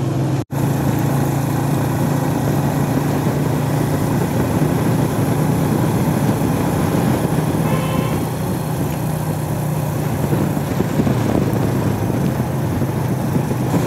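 Motorcycle engine running steadily at road speed under a steady rush of wind noise, with a brief break in the sound about half a second in.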